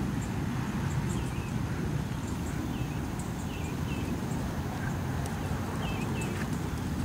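Horse trotting on sand arena footing: soft hoofbeats under a steady low rumble, with short high chirps every second or two.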